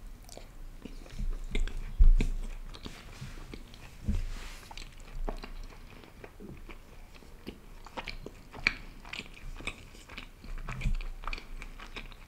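Close-miked chewing of a mouthful of laccha paratha dipped in curry: wet, irregular chewing with many small mouth clicks. Two low thumps stand out about 2 and 4 seconds in.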